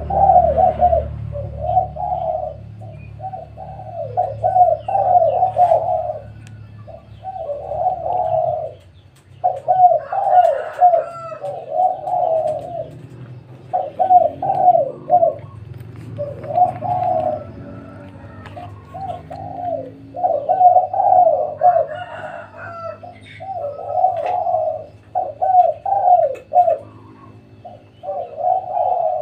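Spotted doves cooing over and over in short phrases, one after another with only brief gaps.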